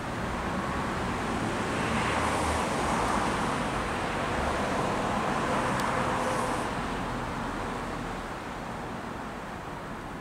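A road vehicle passing close by: its tyre and engine noise swells over the first couple of seconds, holds for a few seconds, then slowly fades away.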